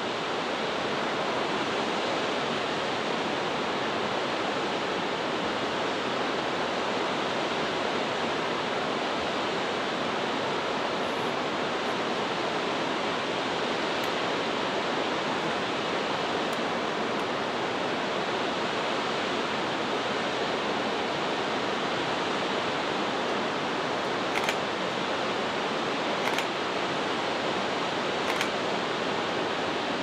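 Steady rushing hiss of the Sankai Falls, a tall mountain waterfall, with a few faint ticks in the last few seconds.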